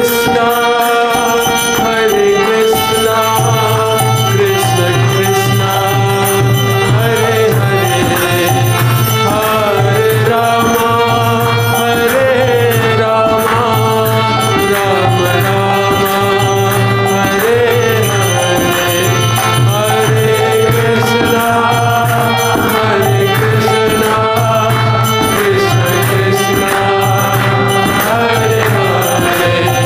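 Devotional kirtan: a lead singer chanting to harmonium accompaniment, with karatalas (small hand cymbals) and a mridanga drum keeping the rhythm, and other voices joining in. A low held note comes in about three seconds in and stays.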